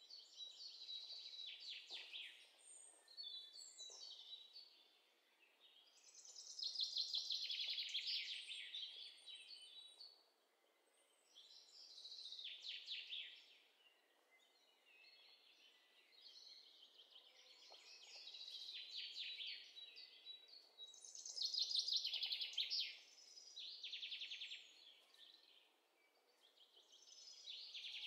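Birds-chirping sound effect: songbirds singing in repeated rapid trilling phrases, a new burst every few seconds with short lulls between.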